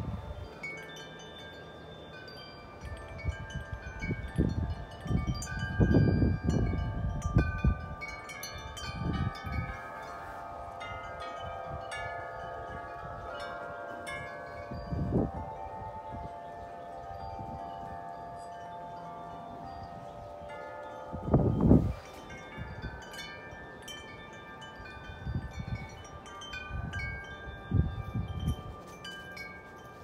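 Large metal tubular wind chimes ringing continuously in gusty wind, many long overlapping tones struck over and over. Wind gusts buffet the microphone several times, strongest about a fifth of the way in and about two thirds through.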